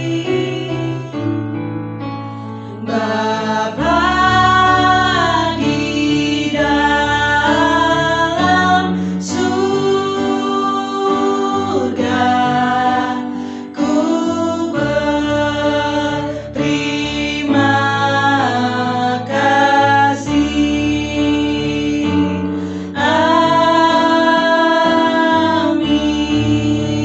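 Worship song: a singing voice in sung phrases with held notes over instrumental accompaniment.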